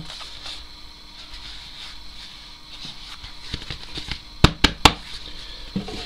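Cardboard packaging being handled: a foam insert is fitted back into its box with light rustling and scraping, then three sharp taps in quick succession about two-thirds of the way through.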